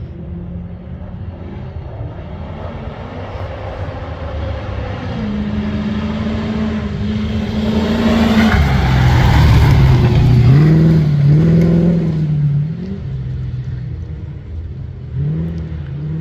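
A competition safari 4x4's engine getting louder as it approaches, loudest about ten seconds in, its pitch dropping sharply at about eight and a half seconds and then revving up and down several times before fading somewhat.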